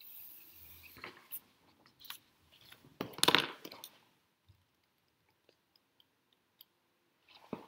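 Paper being handled on a desk: a worksheet slid away with a soft rustle, a few light taps, and a louder rustle about three seconds in.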